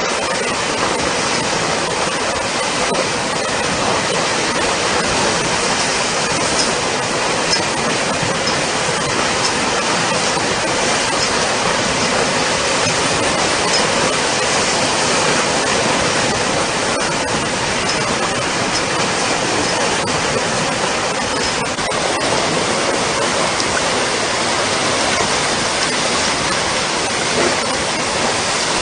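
Steady, unbroken rushing noise of hurricane weather: wind and water. It begins suddenly at a cut and holds even throughout.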